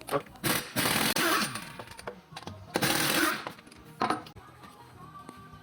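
Two bursts from a power tool, the first about a second long and the second shorter, with light metal clicks between them.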